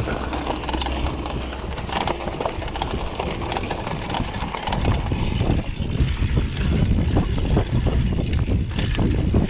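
Full-suspension mountain bike riding down a rough trail: wind buffeting the microphone, over the rattle and knock of tyres, chain and suspension on rocks and roots. It gets rougher and heavier about five seconds in.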